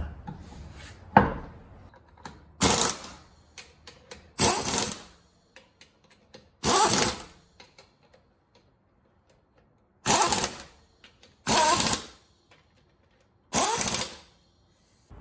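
Stubby pneumatic impact wrench running lug nuts onto a truck wheel in six short bursts, each about half a second to a second long, with pauses between them. A single sharp knock comes about a second in.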